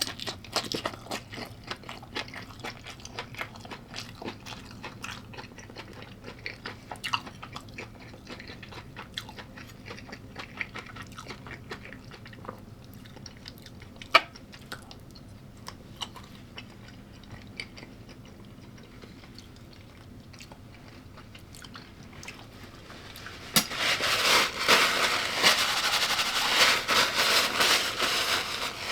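A person chewing crunchy food close to the microphone, with scattered crunches and mouth clicks. About 23 seconds in, a much louder, steady rasping noise starts suddenly and runs on.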